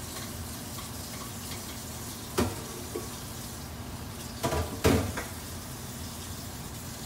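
Cooking on the stove: a steady sizzling hiss from the pot, with several knocks and clinks of a utensil against the cookware, the loudest about two-thirds of the way through.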